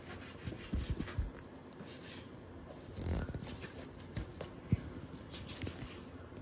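Kitchen knife slicing through a stack of thinly sliced raw beef, with a few soft, scattered knocks of the blade on a plastic cutting board.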